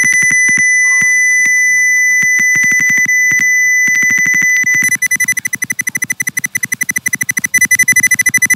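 Computer-generated 2 kHz sine test tone played through the simulated LM386 audio amplifier's speaker output, a sharp, loud, steady beep crackling with rapid clicks. About five seconds in it turns choppy and pulsing, and near the end it grows louder as the volume potentiometer is turned up.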